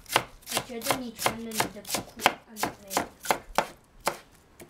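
Chef's knife slicing cabbage on a wooden cutting board: a steady run of sharp knocks as the blade hits the board, about three a second, stopping near the end.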